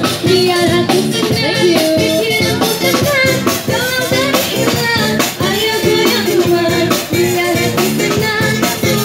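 A woman singing through a microphone with a live band of drum kit, bass guitar and guitar, amplified over a small PA, with a steady drum beat.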